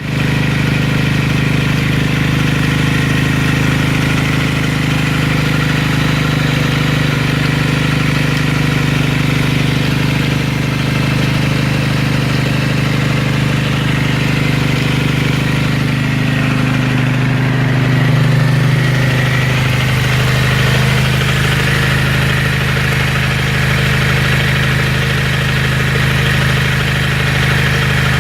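1993 Kawasaki motorcycle engine idling steadily, with a strange noise the owner notices that is strongest close to the tachometer. Its tone shifts slightly about two-thirds of the way through.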